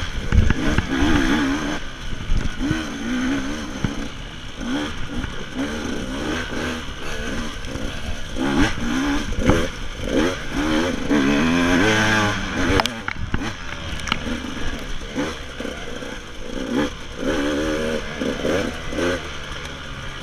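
KTM 200 two-stroke enduro motorcycle engine revving up and down over and over as it is ridden along a rough woodland trail, with clattering knocks from the bike over the bumpy ground.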